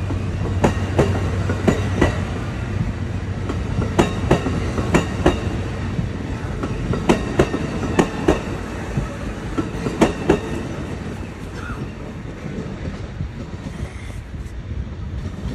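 Amtrak double-deck passenger cars rolling past over a steady low rumble, their wheels clicking over rail joints in pairs about once a second (clickety-clack). The clicks stop about ten seconds in and the rumble fades as the last car pulls away.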